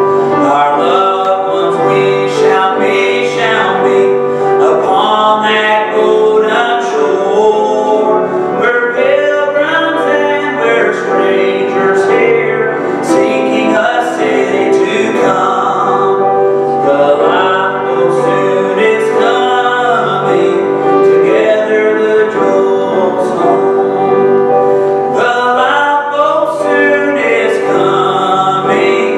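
A man singing a gospel song, accompanied by piano.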